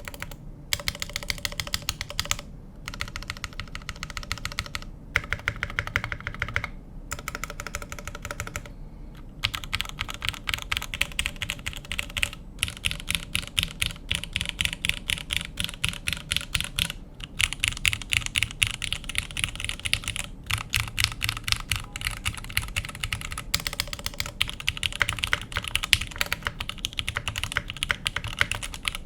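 Fast typing on a computer keyboard: dense runs of keystroke clacks broken by a few brief pauses.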